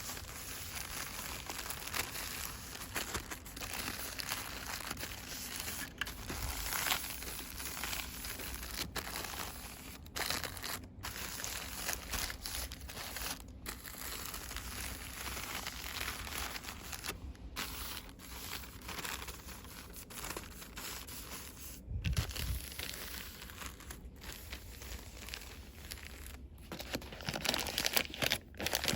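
Fast crinkling and rustling of cosmetics packaging handled by hand, a continuous crackly scratching with brief breaks.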